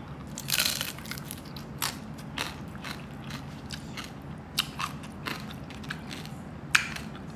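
A crunching bite into crispy deep-fried pork belly skin (lechon kawali), followed by close-up chewing with scattered short, crisp crackles and one sharp crunch near the end; the crackle is the sign of a well-crisped skin.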